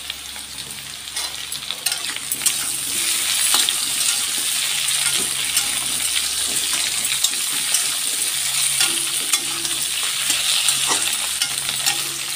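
Potato and taro pieces with onion and tomato sizzling in hot oil in a metal kadai, stirred with a metal spatula that clicks and scrapes against the pan. The sizzle grows louder about two seconds in as the tomato is stirred into the oil.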